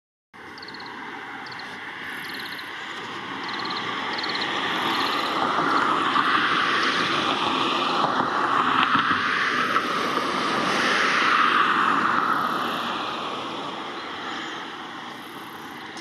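Rushing noise of a passing motor vehicle that swells over several seconds to a peak in the middle and then fades. Faint short high peeps repeat over it in the first few seconds.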